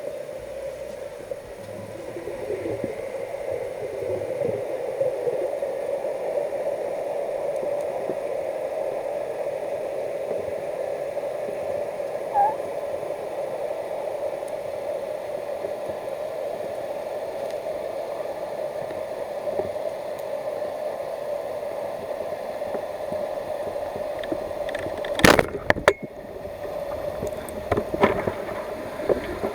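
Underwater sound heard through a diving camera: a steady, muffled water hum with gurgling. Two sharp knocks come close together near the end.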